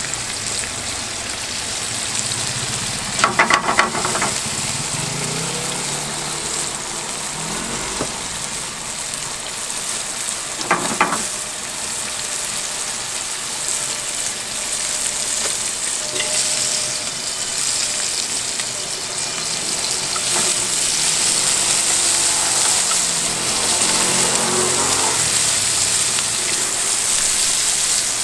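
Bacon, onion and mushrooms frying in oil in a hot pan, a steady sizzle that grows a little louder in the second half. There are two brief clatters, about three and about eleven seconds in.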